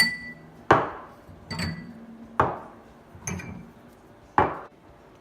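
Dishes and glassware knocking and clinking as they are handled, about six separate clatters less than a second apart. The first and third carry a short ringing tone.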